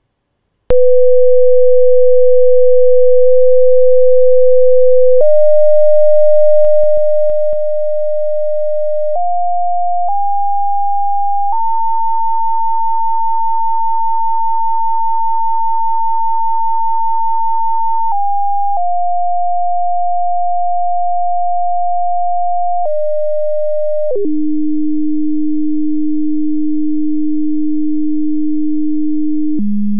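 Computer-generated pure sine tone from a sound-wave simulation's speaker, starting about a second in at 500 Hz. It climbs in steps to about 900 Hz, holds there, then steps back down to about 300 Hz and lower near the end, dropping a little in volume a few seconds in.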